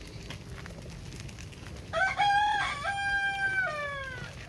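Rooster crowing once, a cock-a-doodle-doo starting about two seconds in. The crow rises in steps, holds its pitch, then slides down and fades at the end.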